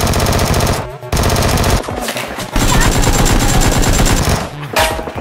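Automatic-gunfire sound effects: rapid bursts of shots with short breaks about a second in and near two seconds, then a longer burst that tails off near the end.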